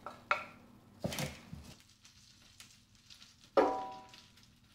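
A wooden spatula scraping roasted vegetables off a baking tray and knocking against a metal pot: three knocks, the loudest near the end, after which the pot rings briefly.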